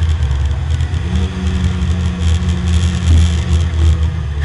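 Porsche 924 race car's four-cylinder engine heard from inside the stripped cabin, running steadily as the car slows from about 96 to 73 mph.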